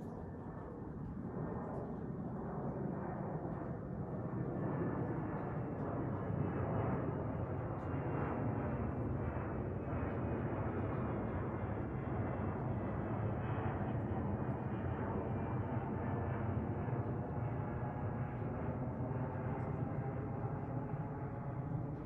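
Jet airliner's engines rumbling as it flies over, getting louder over the first few seconds and then holding steady, with a faint high engine whine above the rumble.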